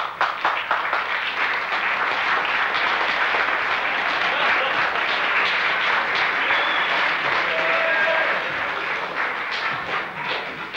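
Audience applauding: a quick run of sharp claps swells after about a second into dense applause, which thins out near the end.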